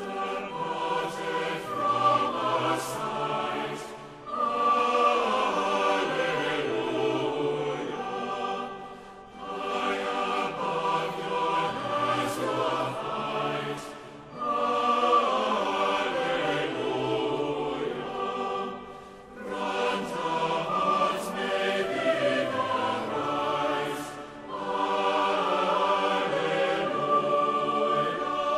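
Choir singing a hymn in phrases of about five seconds, with short breaks between them.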